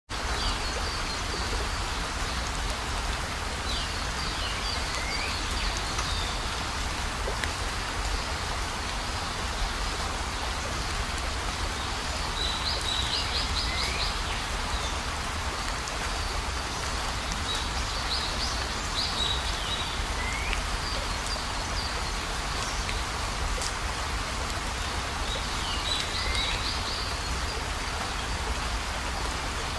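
Night chorus of insects in grass: a steady shrill hiss, with a louder pulsed chirp and a short falling note coming back every several seconds.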